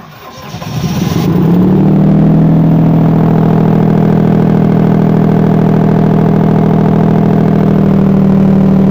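Old diesel generator engine cold-starting: it fires right away, picks up speed over the first couple of seconds, then settles into steady, even running.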